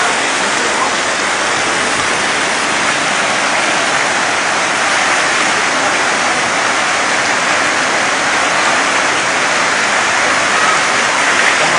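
Loud, steady rush of fast-flowing floodwater pouring down a street, mixed with heavy rain.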